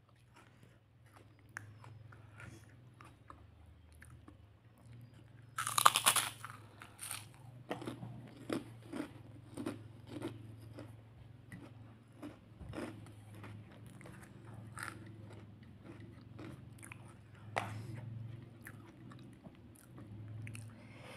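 A person chewing and crunching food close to the microphone while eating rice and fried salted fish by hand, in many short crunches with one loud crunch about six seconds in.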